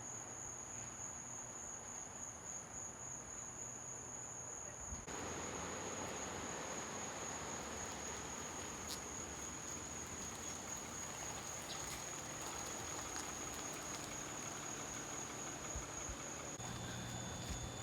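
Steady, high-pitched buzzing of insects, over a low background hiss that gets slightly louder about five seconds in.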